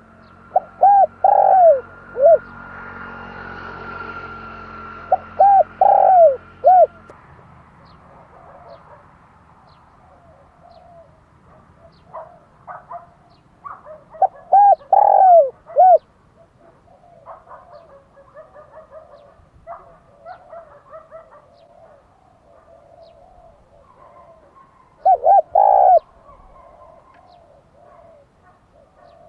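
Dove cooing: four phrases of three or four short, rising-and-falling coo notes, well spaced apart, with fainter calls between them. A steady low hum and a thin high tone sound under the first phrases and stop about seven seconds in.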